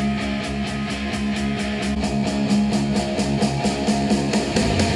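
A rock song with guitar played through a pair of JBL 305P MKII studio monitors and picked up by room microphones. Near the end it switches to a pair of JBL 308P MKII monitors.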